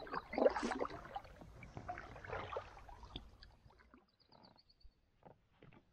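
Canoe paddles dipping and pulling through calm lake water, with irregular splashes and drips. The strokes die down after about four seconds to a few faint drips and knocks.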